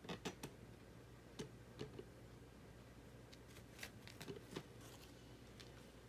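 Faint, irregular soft taps and scuffs of a cat pawing at and biting a fluffy toy on a hard floor, a few at the start and a cluster about four seconds in, over a low steady room hum.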